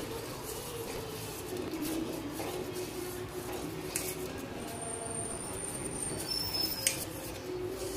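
A steel pot of thick masala oats simmering on a gas stove: a steady hiss with a low wavering hum, and a couple of sharp clinks, about four seconds in and again near the end.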